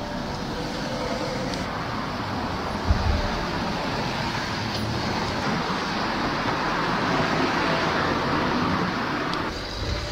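Road traffic on a busy street: a steady rush of passing vehicles that swells louder about seven seconds in, as one goes by, then dies away. A brief thump about three seconds in.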